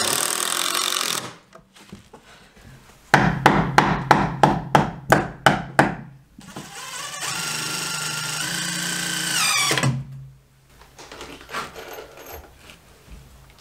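A cordless impact driver runs in bursts, driving screws into wooden floor blocking between joists. One run cuts off about a second in, a string of about ten sharp knocks follows a few seconds in, and a steady run rises in pitch and stops near the middle. Softer scattered clicks and knocks come after that.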